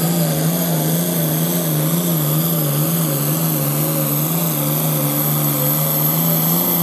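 Turbocharged diesel farm tractor engine running flat out under heavy load as it pulls a weight-transfer sled, a loud, steady engine note wavering slightly in pitch with a thin high turbo whine above it.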